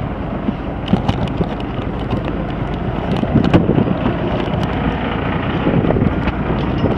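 Fishing boat's engine rumbling under wind buffeting the microphone, with scattered sharp clicks and knocks.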